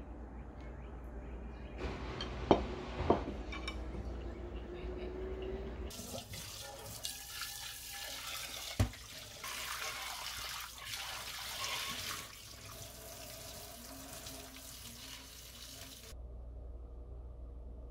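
Two sharp clinks a few seconds in, then a kitchen tap running into a stainless steel sink while a metal strainer bowl is rinsed by hand under it. There is one sharp knock of metal about nine seconds in, and the water shuts off about sixteen seconds in.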